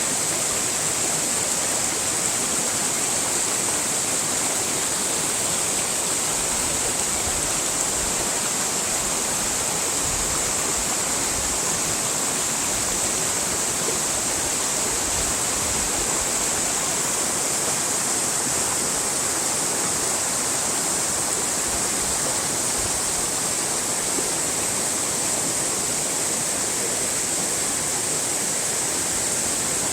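Steady, unbroken rushing of water, as of a waterfall or fast stream, with a strong hiss in the highs and no change throughout.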